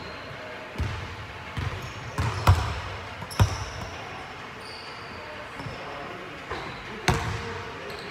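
Basketball bouncing on a hardwood gym floor: a handful of sharp thuds, ringing in the large hall, the loudest about two and a half and three and a half seconds in and another about seven seconds in.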